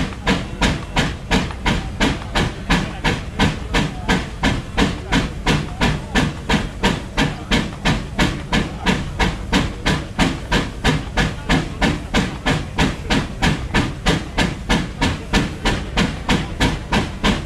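McLaren steam road locomotive's exhaust beating hard up the chimney, about three sharp beats a second, steady and even, with steam hissing between them. The engine is working under load, driving a belt to the dynamometer.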